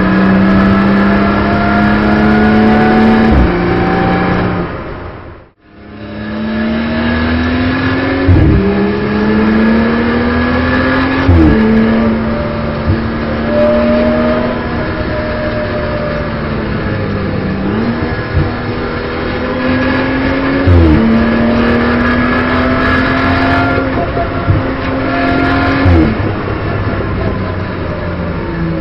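BMW M240i Racing Cup's turbocharged straight-six heard from inside the cockpit under hard acceleration, the engine note climbing through each gear and dropping sharply at every upshift, about every three to five seconds with a short crack at each change. The sound cuts out briefly about five seconds in.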